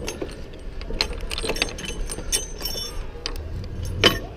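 Light metal clinking and jingling of a lineman's rigging hardware (chain, snap hooks and a rope block) as gloved hands work a handline, with one sharper clank about four seconds in, over a low rumble.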